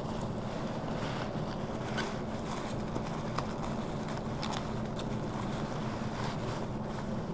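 A steady low mechanical hum with an even background noise, and plastic bin bags crinkling now and then as they are pulled about in a wheelie bin.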